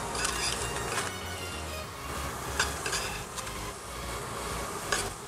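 Beef strips sizzling as they sear in a hot stainless-steel frying pan with no fat added, with a few sharp clicks of a metal utensil against the pan.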